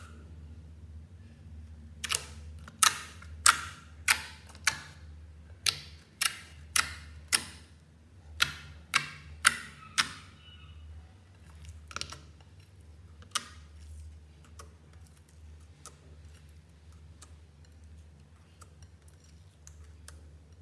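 Clear slime in a glass dish poked and pressed with fingertips, giving a series of sharp clicks, about two a second, that grow fainter and sparser after about ten seconds. A low steady hum underneath.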